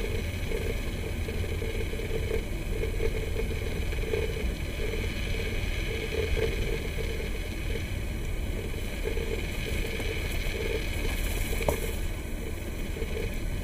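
SUV driving slowly along a rough dirt trail: a steady low rumble of engine and tyres, with one short click near the end.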